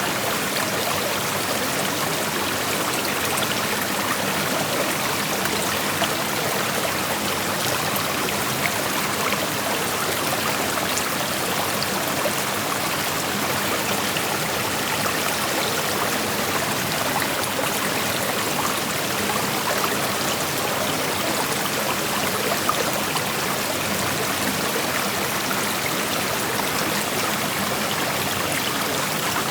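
Creek water flowing steadily over a shallow rocky bed, an even rushing with small trickles and splashes.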